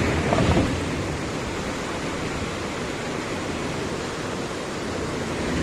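Floodwater of the Godavari rushing through and over a river barrage: a steady, even rush of turbulent water.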